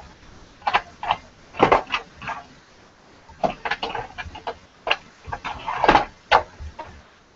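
Short, irregular scraping strokes of a hobby knife blade on a plastic model part, scraping off mold lines, with a few light knocks from handling.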